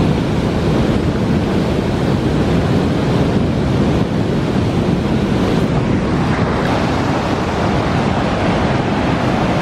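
Waterfall and whitewater rapids rushing steadily and loudly, with wind buffeting the microphone.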